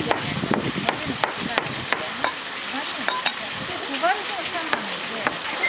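Kitchen knife chopping squid on a plastic cutting board: a run of sharp knocks, about two to three a second, over a steady background hiss.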